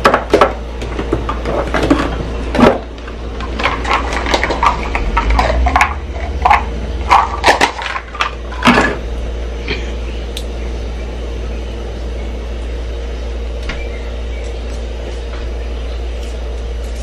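Clicks, knocks and rattles of spice shakers being opened, shaken and set down during the first half, over a steady low hum. The hum runs on alone for the second half.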